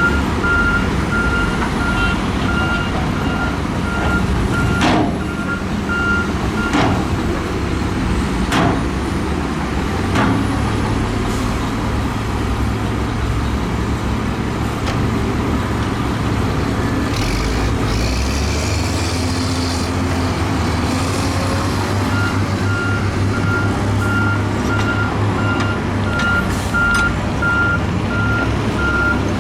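Heavy diesel earthmoving machinery running, with a reversing alarm beeping in a steady rhythm that stops about a quarter of the way in and starts again near the end. A few sharp clanks come in between, and a long hiss of air about two-thirds of the way through.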